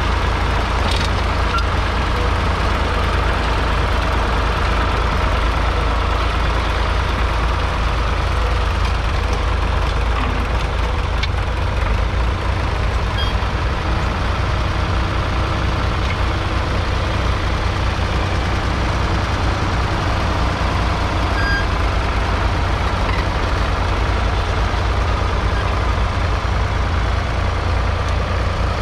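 1974 Ford 3000's 2.9-litre three-cylinder diesel engine running steadily under load while pulling a two-furrow mounted plough through the soil.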